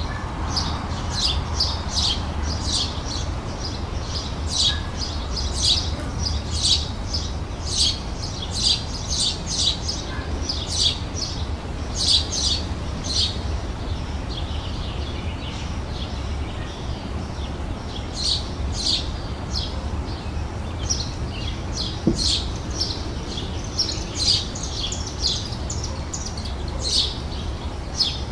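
Small songbirds chirping and twittering in short, high, repeated notes, often one or two a second, with a lull of a few seconds around the middle. A steady low rumble runs underneath.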